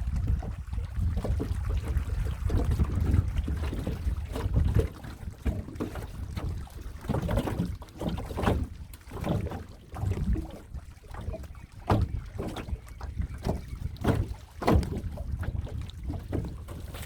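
Water splashing and sloshing around a small boat on a fish pond, in irregular splashes. Wind buffets the microphone with a low rumble for the first few seconds.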